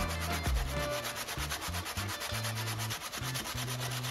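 Sandpaper rubbed by hand back and forth over a black plastic panel, a steady run of quick, even scratchy strokes, smoothing down a repaired spot in the plastic.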